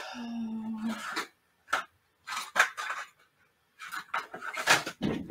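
Hands rummaging through craft supplies for a paper clip: a string of small separate clicks and clatters. A short steady hum-like tone sounds in the first second.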